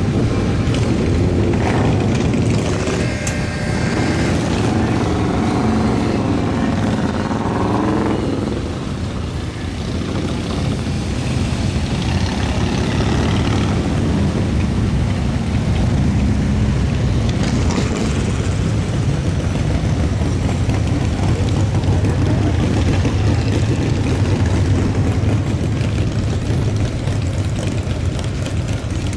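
A procession of motorcycles riding slowly past, many engines running together in a loud, steady low drone.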